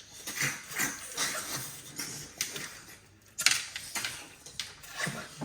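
People sucking river snails (ghonghi) out of their shells with a string of irregular slurps, and snail shells clicking against bowls.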